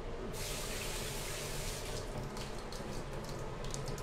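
Kitchen tap running into a stainless steel sink, with hands held under the stream. The flow starts just after the beginning and is strongest for about two seconds, then fades to a weaker hiss with a few small clicks.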